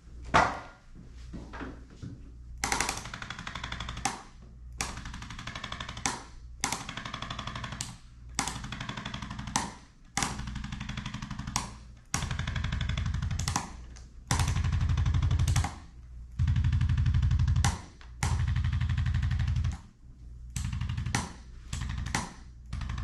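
Handheld electric percussion tool hammering rapidly against the patient's back, used as a chiropractic treatment, in about a dozen bursts of a second or so each with short pauses between. The bursts around the middle are louder, with a deeper thud.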